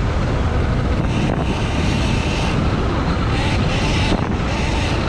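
Wind buffeting the microphone of an on-board camera on a moving electric mini dirt bike, a dense steady rumble with a higher hiss that drops out briefly about a second in and again around three and four seconds.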